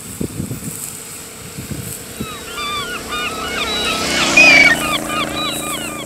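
Birds chattering in a rapid run of short chirping calls from about two and a half seconds in, over a steady motor hum that comes in about a second and a half later.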